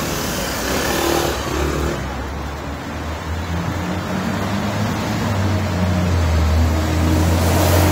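Road traffic: motor vehicle engines running close by, with a low engine drone growing louder in the second half.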